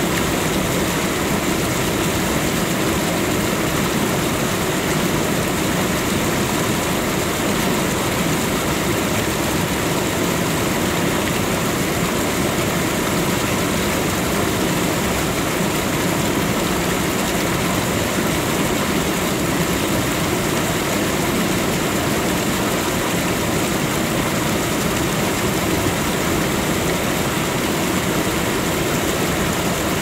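Steady, even rush of a waterfall: falling water pouring and splashing without a break.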